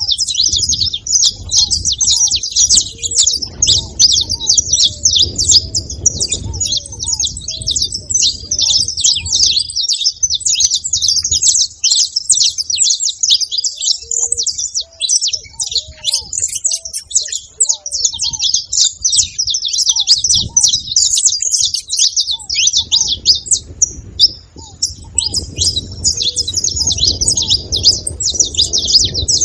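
A group of saffron finches chirping and twittering nonstop in a dense, high-pitched chorus.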